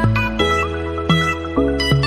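Background music: a tune of short pitched notes following quickly one after another over a held low bass.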